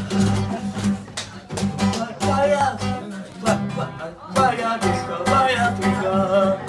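A man singing to his own strummed acoustic guitar, the voice coming in phrases over steady strumming.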